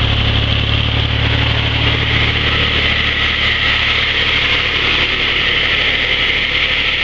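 Old Massey Ferguson tractor engine running steadily, driving a cordwood saw's large circular blade through the PTO; the blade spins free, not yet cutting, with a steady higher hiss alongside the engine.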